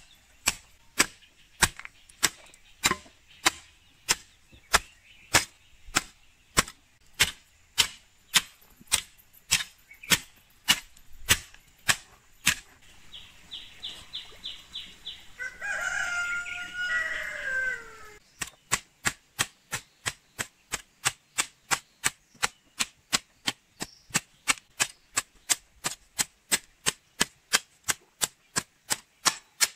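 A metal garden hoe chopping into soil in steady strokes, about one and a half a second at first and then faster, nearly three a second. Midway the strokes stop and a rooster crows once, its call ending in a falling tone.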